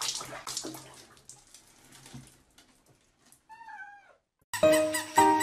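Water sloshing in a tub around a bathing cat, fading away over the first couple of seconds. About three and a half seconds in, the cat gives one short meow that drops in pitch at its end. Music with plucked notes starts near the end.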